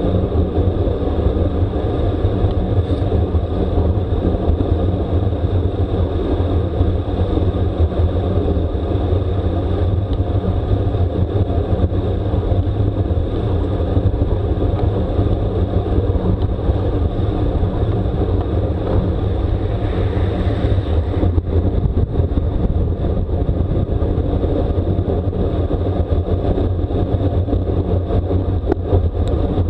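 Steady wind rush and road noise of a bicycle ridden at racing speed in a time trial, even and unbroken throughout.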